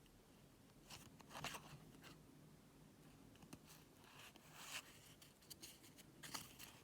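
Near silence broken by a few faint, brief rustles and taps of game cards being handled and leafed through.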